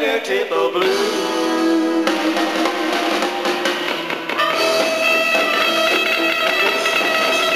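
Live country band playing, electric guitars over a drum kit.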